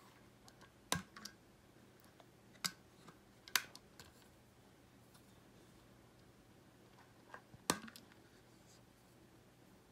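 Hard plastic clicking and tapping as a Starbucks JNM tumbler and its flip-top lid are handled and opened: scattered sharp single clicks, the loudest about a second in, at about three and a half seconds, and about three quarters of the way through.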